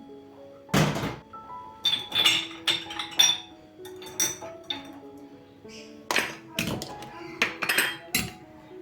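Kitchen work: a string of sharp knocks and clinks of dishes and utensils, the heaviest thunk about a second in and clusters of clinks after it, over soft background music.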